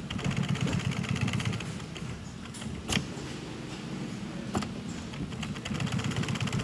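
Sewing machine stitching through layers of nylon in two runs, one at the start and one near the end, with a fast, even stitch rhythm. In the pause between them there are two sharp clicks.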